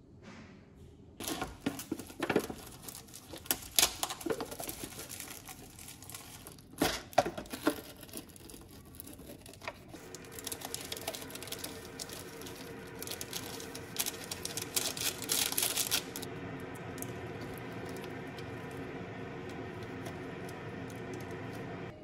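Foil lids and plastic seasoning sachets of instant cup noodles being peeled, torn open and handled, with dense crinkling and a few sharp tears. A steady hum sets in about ten seconds in and carries on alone after the crinkling stops.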